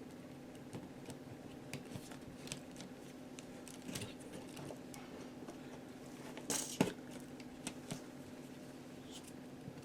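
Light handling noises of hands working with tools and materials: scattered small clicks and taps, with a louder clatter about six and a half seconds in, over a steady low hum.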